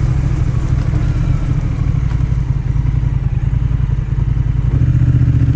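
Honda Rebel 1100's parallel-twin engine running steadily at an even pace, with no change in revs.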